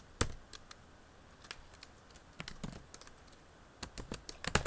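Computer keyboard keystrokes in irregular taps, with one louder keystroke just after the start and a quick run of keystrokes near the end.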